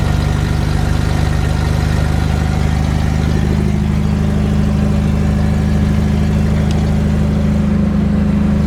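ZMZ-402 four-cylinder petrol engine of a Volga car running steadily with no muffler or resonator, giving a loud, low exhaust drone. The muffler and resonator have fallen off at the exhaust bend.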